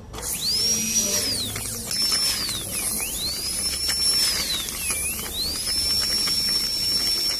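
High-speed dental handpiece whining, its pitch sagging three times and climbing back as the bur is pressed on and lifted off the tooth.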